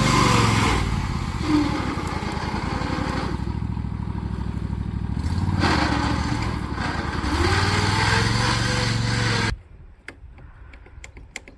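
Mud-mower lawn tractor engine running, its speed dropping about a second in and climbing back up a few seconds before the end. The engine sound cuts off suddenly near the end, leaving a few light clicks.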